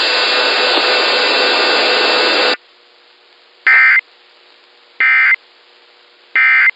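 A loud, harsh noise cuts off about two and a half seconds in. It is followed by three short, identical buzzy data bursts about 1.3 seconds apart: the Emergency Alert System end-of-message (EOM) tones that close the broadcast test.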